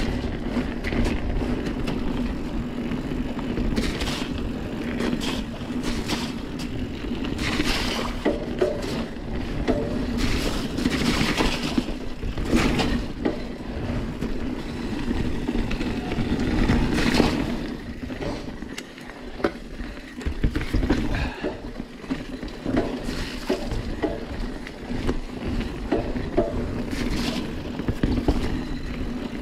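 Santa Cruz Hightower 29er mountain bike being ridden on a muddy forest trail: tyres rolling on dirt with a continuous rumble, and frequent knocks, clatters and scrapes from the bike over rough ground. The drivetrain is full of mud and grinding. The sound eases for a few seconds about two-thirds of the way through.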